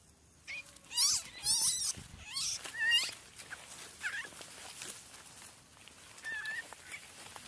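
Young monkey squeaking and squealing in a run of short, high calls that bend up and down, loudest in the first three seconds, followed by a few fainter calls.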